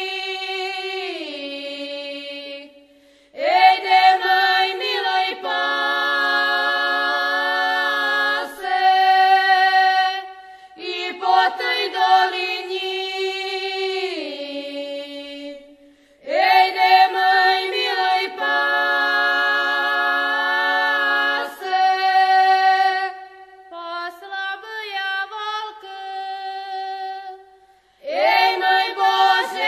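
Female voices singing a song in Slovak in harmony, unaccompanied, in long held phrases separated by three brief pauses.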